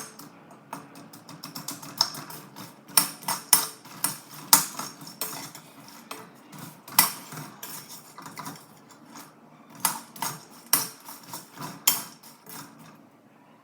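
A spoon clinking and scraping against a kadai while stirring roasted makhana (fox nuts) to coat them in masala: irregular clicks and knocks that stop shortly before the end.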